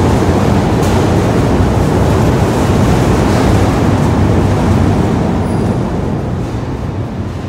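Tannery de-salting drum and stainless-steel hide conveyor line running with a loud, steady rumble, fading near the end.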